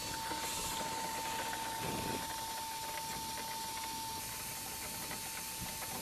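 A motor running steadily with a high whine over a steady rush of air, used in clearing lint from a clogged dryer vent.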